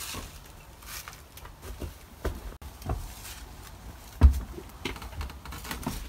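Footsteps and scattered knocks on a soft, rotting wooden floor, with one heavy thump about four seconds in.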